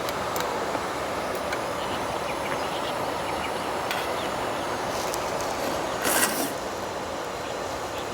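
Steady rushing noise with a few faint clicks, and a brief, louder noisy burst about six seconds in.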